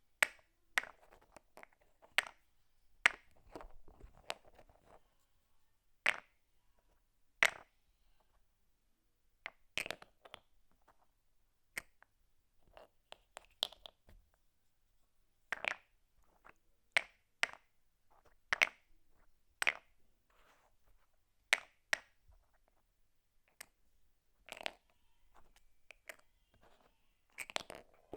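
Plastic lids clicking and clacking: a string of separate sharp clicks at irregular intervals, some in quick pairs.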